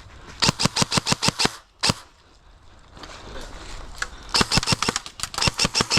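Airsoft guns firing quick runs of sharp cracking shots, about eight a second. One run of about ten shots comes in the first second and a half, a single shot follows, and more runs start about four seconds in.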